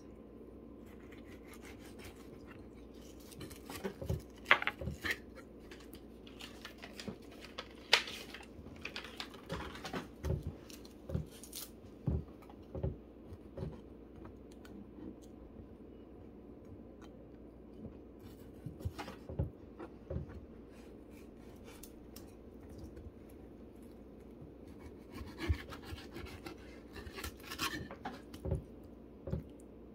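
Chef's knife scraping and knocking on a plastic cutting board while trimming raw fish fillets, in bursts of short scrapes with pauses between, over a faint steady hum.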